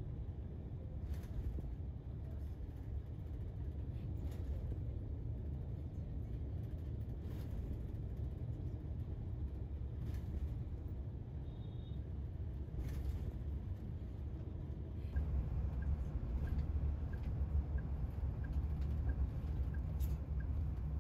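Cabin sound of a highway bus travelling at speed: a steady low engine and road rumble, with a light knock every three seconds or so. The rumble grows louder about three-quarters of the way through, and a faint regular ticking runs under it from then on.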